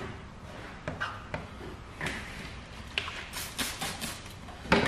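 A few light clicks from a plastic squeegee working wet paint protection film, then a trigger spray bottle spritzing solution in about six quick short pumps a little after three seconds in, with a louder sharp spritz or knock near the end.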